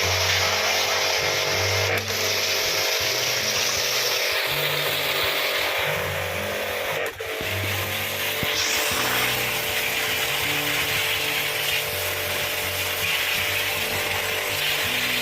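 Background music with a stepping bass line over a continuous loud hiss, like a power tool or a spray, broken by two brief dropouts.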